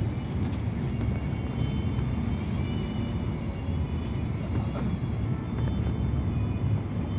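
Intercity coach cruising on a highway, heard from inside the passenger cabin: a steady low rumble of engine and road noise.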